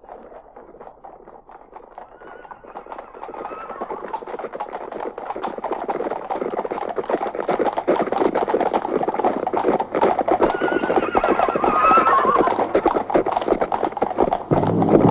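Horses' hoofbeats coming closer, growing steadily louder, with a horse neighing about eleven seconds in. Drum-led music comes in just before the end.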